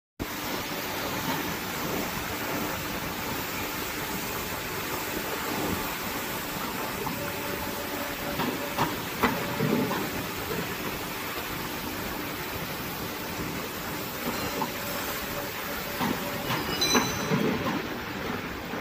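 CNC tube bending machine working through a bend: a steady hiss of machinery with a faint hum while the bend head turns the tube, and metallic clanks of the clamps and dies about nine seconds in and again near the end.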